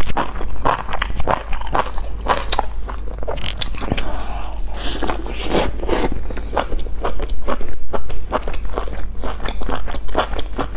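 Close-miked chewing of a stuffed flatbread with crispy fried filling: a steady run of wet, crackly crunches and clicks, several a second.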